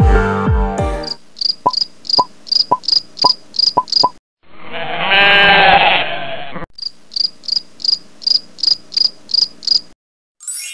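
Cricket chirping ambience, a regular high chirp about four times a second, broken in the middle by one long animal call lasting about two seconds. Electronic music cuts off about a second in, and a short rising chime sounds at the very end.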